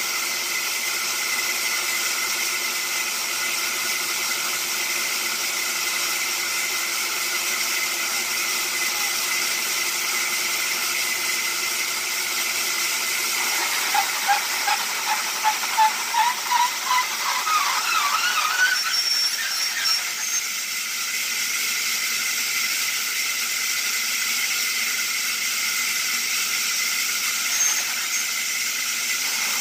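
Horizontal band sawmill running with a steady hiss while its log carriage moves along the rails. About fourteen seconds in, a rhythmic squeal starts, rising in pitch and quickening for about five seconds before it stops.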